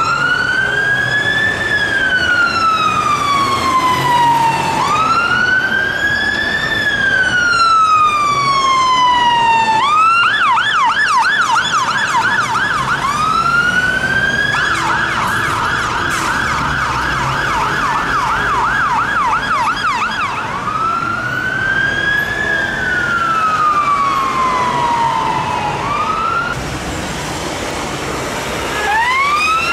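UK emergency-vehicle siren, switching between a slow wail that rises quickly and falls over about four seconds and a fast yelp of about three sweeps a second, over the low rumble of traffic.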